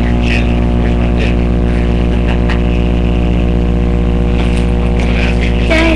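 Loud, steady electrical hum with many even overtones, picked up by a webcam microphone; a voice comes in just before the end.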